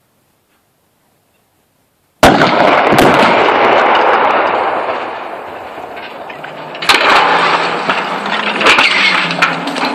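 Demolition charges going off at the guy-wire anchors of a 360 m guyed transmission mast: near silence, then a sudden loud blast about two seconds in that rumbles and slowly fades. About seven seconds in a second loud burst starts, full of sharp cracks.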